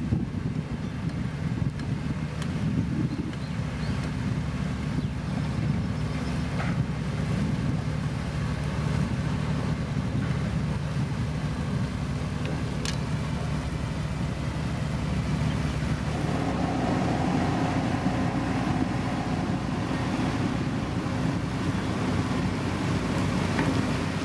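Diesel engine of heavy road-building machinery running steadily. About sixteen seconds in, a higher steady tone joins it.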